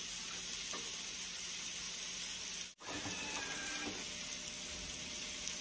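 Steady high hiss of background noise that cuts out abruptly for an instant about three seconds in.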